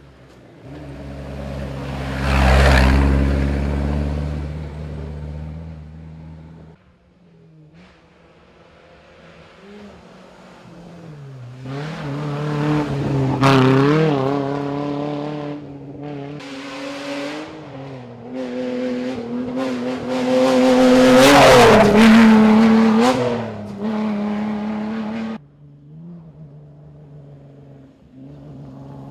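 Off-road rally 4x4s being driven hard on a dirt stage and passing close by. Their engines rev and drop through gear changes, loudest about two seconds in, again around the middle, and most of all a few seconds later. The sound cuts off suddenly twice.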